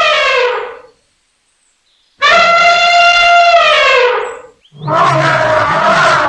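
Dog howling: three long, loud howls, each held on a steady pitch and sinking at the end. The last howl is rougher than the first two.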